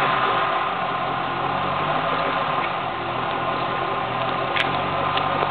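Fifth-generation Chevrolet Camaro with a cold air intake and stock exhaust, idling steadily at the tailpipes. A single sharp click about four and a half seconds in.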